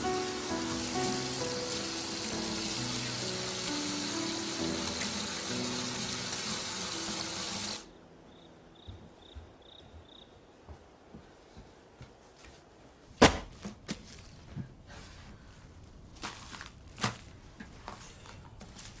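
Background music over a steady hiss, cutting off suddenly about eight seconds in. Then a quiet room with a few faint high chirps, scattered light knocks and clicks, and one sharp thump about five seconds after the music stops.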